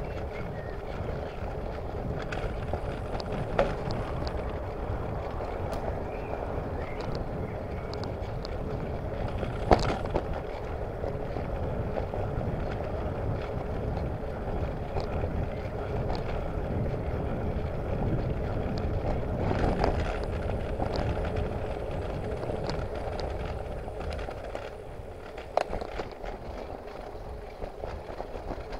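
Bicycle riding on a paved path: steady tyre and wind noise with scattered sharp rattles and knocks as the bike goes over bumps, picked up by a handlebar-mounted camera.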